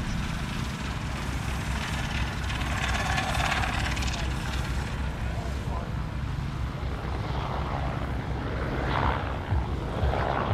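Rolls-Royce Meteor V12 engine in a special-built car, running at low speed as the car drives slowly past; a deep, uneven rumble.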